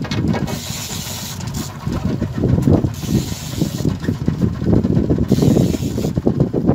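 Wind buffeting the microphone on a boat at sea over the boat's engine, with a hiss that comes and goes several times.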